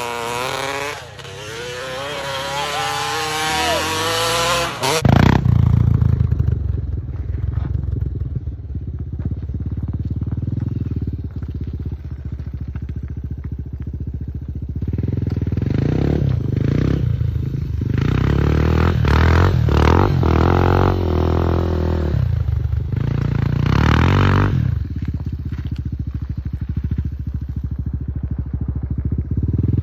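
Dirt bike engines: one is revved hard with the pitch climbing and falling for about five seconds. After that, bikes idle with a low, uneven running sound and are revved several times in the second half.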